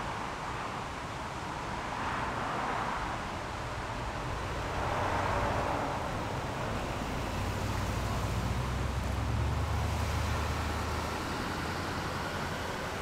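Road traffic going by: two vehicles swell past in the first few seconds, then a low engine rumble builds and fades over the middle of the stretch.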